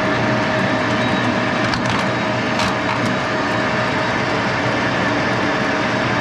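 1941 Axelson 14x30 engine lathe running steadily with its spindle at about 628 rpm: a steady mechanical hum with a steady whine in it. There are a couple of light clicks about two seconds in.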